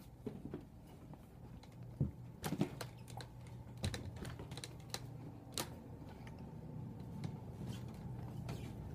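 Scattered light clicks and knocks, irregular and a few per second at most, over a faint steady low hum, from movement along the ride.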